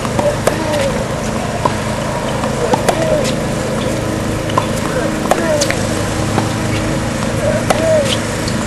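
Tennis balls struck with rackets in a drill: about a dozen short, sharp hits at irregular intervals, with brief voice sounds after several of them, over a steady low hum.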